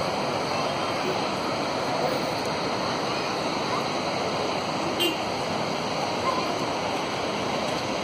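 Steady rush of a large waterfall heard from across the gorge, an even roar of falling water, with a brief click about five seconds in.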